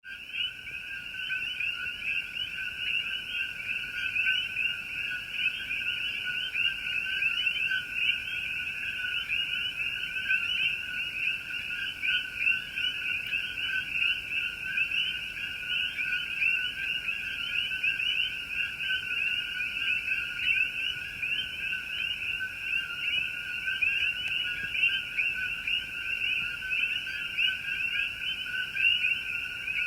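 A dense chorus of many frogs calling at once, a steady, unbroken mass of short, high-pitched, overlapping chirps.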